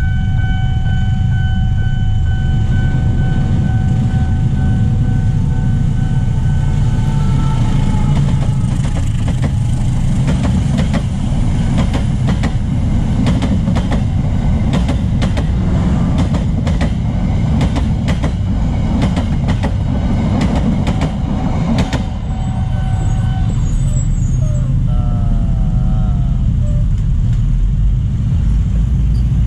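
Passenger train passing close by at a level crossing: a heavy rumble, with rapid clacks of the wheels over the rail joints through the middle as the coaches go by. The crossing's warning signal rings as a steady tone at the start, and briefly again after the train has passed.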